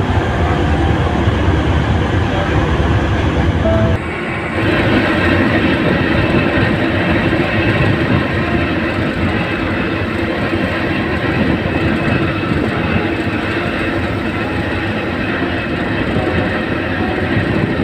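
Steady rumbling noise of a passenger ship's machinery. About four seconds in the sound changes abruptly: the deep low rumble drops away and a steadier hum takes over.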